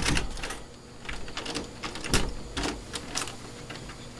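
Interior doorknob with a push-button privacy lock being jiggled and twisted by hand to pick it: irregular metallic clicks and rattles, with a sharp knock at the start.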